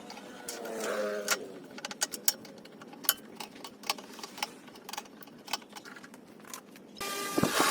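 Scattered light clicks and knocks of small hard objects, irregular and a few a second. Near the end a loud steady noise starts up.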